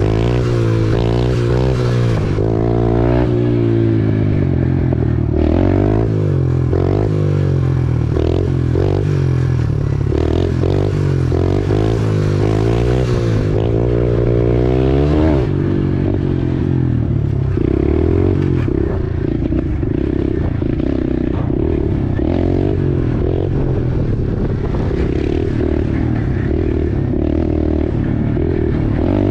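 Small dirt bike engine revving up and down over and over, settling into a steadier run about halfway through.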